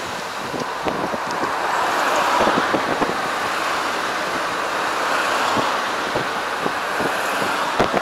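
Moving car heard from inside the cabin: steady road and wind noise that grows louder about two seconds in.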